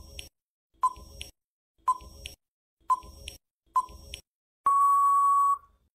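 Countdown-timer sound effect: a short beeping tick about once a second, then one long steady beep of about a second near the end as the timer runs out.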